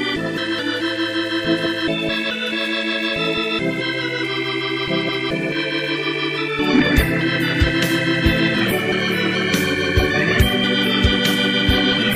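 Instrumental electronic song made in Soundtrap: sustained chords that change every second or two, joined about halfway through by a steady drum beat.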